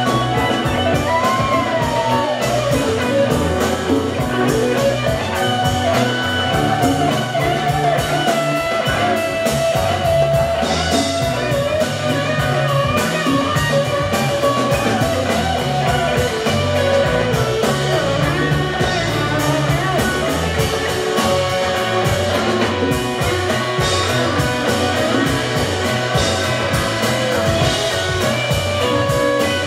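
Live jam-band rock with electric guitar over bass and drum kit. The lead guitar line has bent, gliding notes. It is heard from among the audience in the hall.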